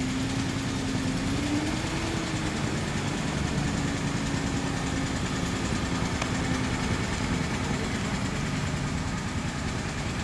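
Classic sedan's engine running at low speed as the car rolls slowly across grass, a steady hum that rises slightly in pitch about a second and a half in, then settles.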